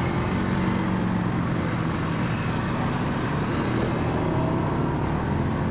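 ATV engine running at a steady speed as the quad rides along, a constant low drone.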